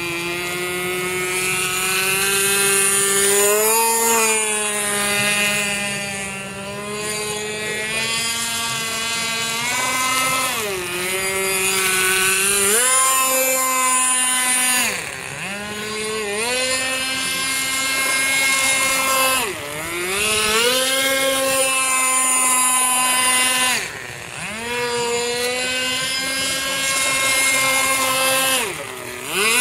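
A radio-controlled model speedboat's small engine buzzing at high revs. Its pitch dips sharply and climbs back about five times in the second half.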